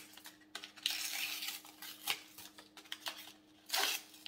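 Cardboard-backed plastic blister pack being torn open by hand: irregular crinkling and ripping, with the loudest rip near the end.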